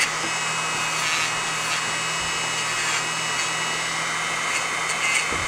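Dremel rotary tool running steadily at speed, its small wheel grinding rust off a small metal part: a constant high whine over a grinding hiss.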